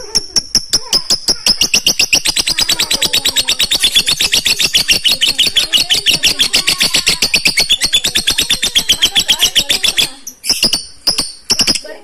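Lovebird ngekek: one long, loud chattering trill of rapid, evenly spaced shrill notes that breaks off about ten seconds in, followed by a few short separate calls.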